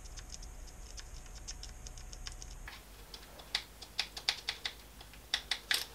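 Light clicks and taps of a fine-nib permanent marker being dabbed into the mounting holes of a DRO scale against the lathe's steel top slide. A faint fast ticking comes first, and sharper, irregular clicks follow from about halfway through.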